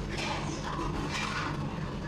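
Train running, heard from inside the carriage: a steady low hum under a hiss that swells and fades every second or so.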